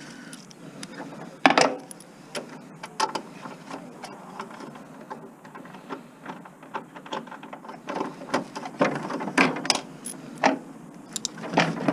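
Irregular metallic clicks, clinks and knocks of hand tools and steel parts being handled while a table saw is dismantled for scrap. One louder knock comes about a second and a half in, and a denser run of clinks comes near the end.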